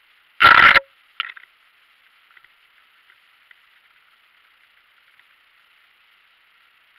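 An electric mountain bike jolting over a rocky trail: a loud brief knock about half a second in, a smaller clatter about a second in, then faint scattered rattles and ticks over a steady thin hiss.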